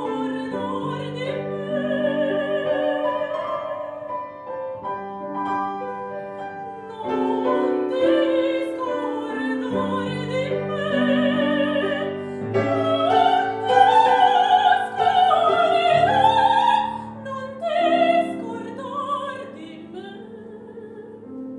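A young woman singing an operatic aria with vibrato, accompanied by a grand piano. Her loudest, highest phrases come in the middle; near the end the voice stops and the piano dies away.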